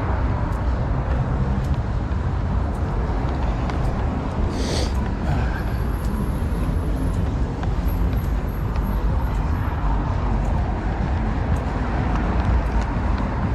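City street ambience: a steady low rumble of passing traffic, with a short hiss about five seconds in.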